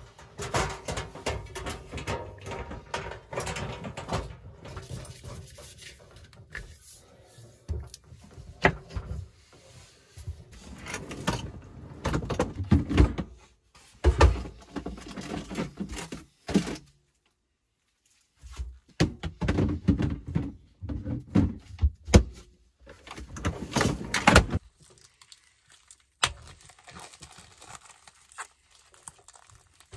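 Irregular clunks, knocks and rustling of food-prep handling in a small van interior: a propane camp stove being set up on a wooden counter, a slide-out drawer unit being worked, and a plastic-wrapped tray of raw chicken being handled. A second or so of complete silence breaks it a little past the middle.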